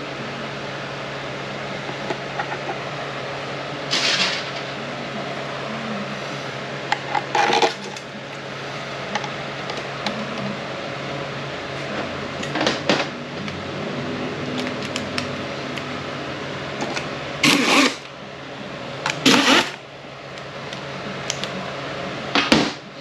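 Metal transmission parts being handled and fitted: about six short clicks and scrapes spread out over the stretch, with a steady low mechanical hum underneath.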